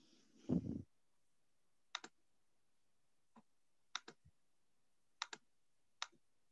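Faint computer mouse clicks, several over a few seconds, most of them a quick press-and-release pair, after a short low thump about half a second in.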